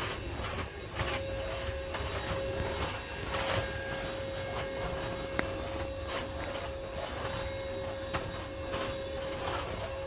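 A steady, even hum at one pitch, briefly dropping out about a second in, with irregular soft rustles and clicks close to the microphone.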